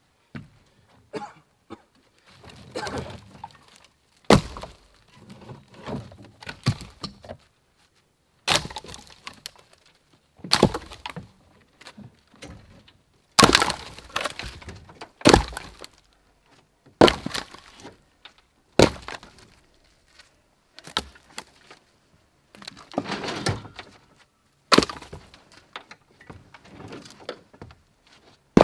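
Dry spruce firewood logs dropped onto a log pile, landing with a series of sharp wooden thunks and cracks every second or two, with rougher scraping sounds between some drops.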